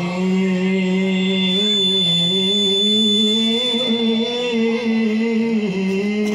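A male Quran reciter (qari) holding one long, slowly wavering melismatic note in tilawah style, amplified through a microphone and PA.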